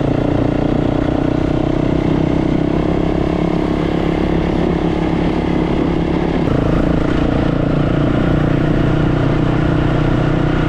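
Dirt bike engine running steadily as the bike is ridden along. The engine note shifts about six and a half seconds in.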